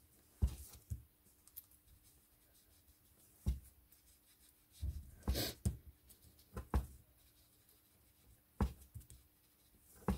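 Soft, scattered taps of a small round ink applicator dabbing distress ink onto the edges of a card panel and the ink pad, with a short scuffing rub of the applicator on the card a little past five seconds in.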